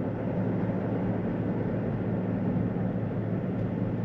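Car driving steadily along a road: an even drone of engine and tyres with a constant low hum.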